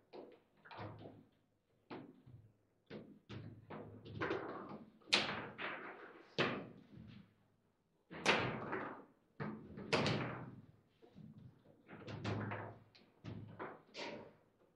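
Foosball table in play: a string of irregular sharp knocks and bangs as the ball is struck by the player figures and bounces off the table, some hits loud and ringing briefly.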